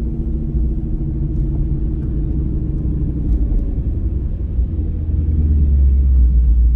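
Whipple-supercharged Mustang V8 running at low speed with a deep, steady rumble; the low rumble grows louder about five seconds in.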